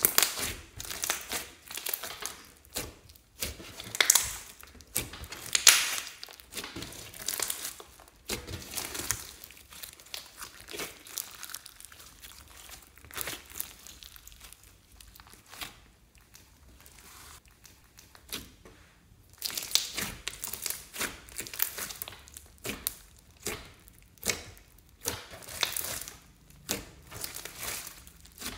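Hands squeezing, stretching and pressing a large lump of bead-filled slime: an irregular run of sticky crackles and squishes, quieter for a few seconds in the middle.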